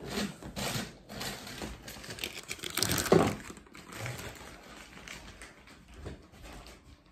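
Crinkling and crackling of a plastic packet being handled, with a quick run of small clicks that is loudest about three seconds in.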